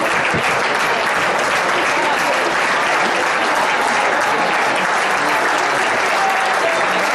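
Large football-stadium crowd applauding steadily, with crowd voices mixed in.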